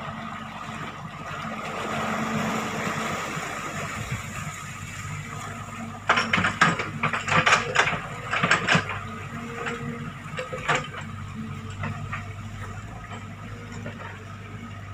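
Small Sany hydraulic excavator's diesel engine running steadily while the bucket works the ditch. A run of sharp knocks and clatter comes about six to nine seconds in.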